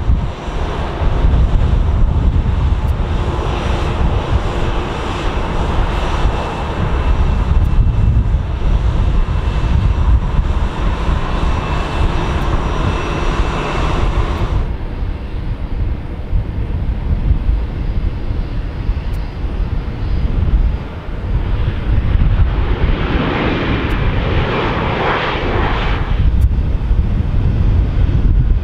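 Jet airliner engines at taxi power: a steady deep rumble with a faint whine. About halfway through the sound changes abruptly to a duller rumble. A few seconds before the end a louder rushing swell rises and falls.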